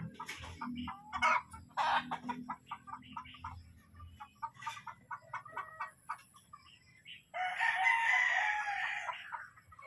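Caged gamefowl roosters clucking in short calls, then one rooster crowing loudly for about two seconds, starting about seven seconds in.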